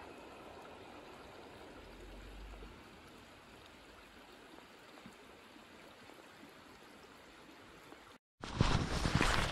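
Shallow mountain stream running over a stony bed: a faint, steady rush of water. About eight seconds in it cuts off, and loud footsteps on a stony path follow.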